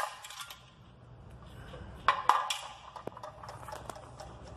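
Empty aluminium drink cans, holed by BBs, clinking and scraping as they are handled and knocked onto concrete: one clink at the start and two more about two seconds in, each with a short metallic ring.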